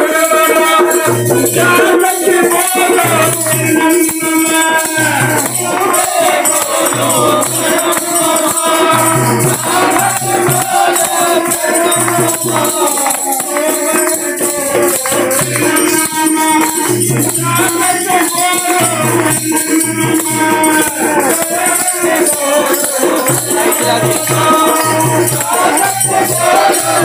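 Hindu devotional kirtan: a man singing a melody line over a steadily held harmonium drone, with rattling hand percussion and a low drum keeping a regular beat.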